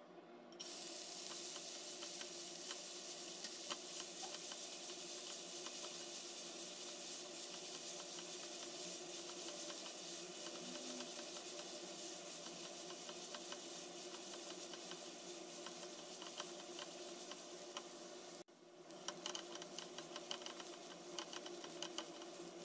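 Chopped onions sizzling in hot oil with cumin seeds in a nonstick pan. The sizzle starts suddenly about half a second in, as the onions go in, and holds steady while a silicone spatula stirs them. After a brief break near the end it comes back with small clicks of the spatula against the pan.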